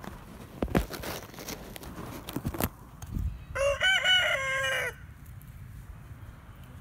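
A few sharp clicks and knocks from handling, then a loud pitched animal call lasting about a second and a half in the middle.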